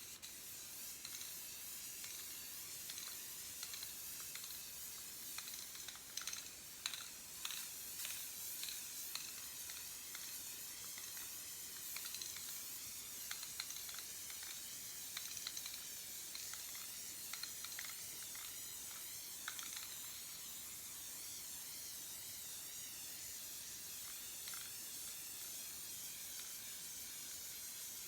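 Spray can of self-etching primer hissing in a long steady spray as a coat of primer goes onto the safe's steel, with scattered light clicks in the first part.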